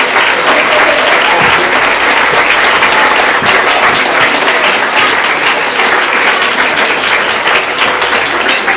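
Theatre audience applauding, a dense, steady clapping held at a loud level throughout.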